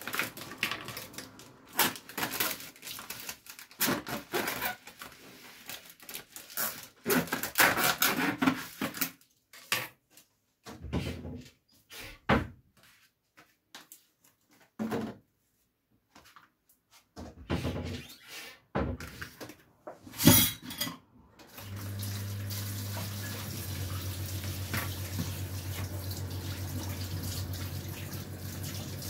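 Kitchen sink work: bursts of running tap water and dishes clattering, broken by a few sudden silences. About three-quarters of the way through, a steady rush of water with a low hum sets in and runs on.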